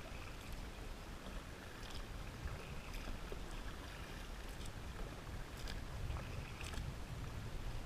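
Faint water and wind noise around a fishing kayak on the lake, a steady low rumble, with a few light clicks and taps scattered through it.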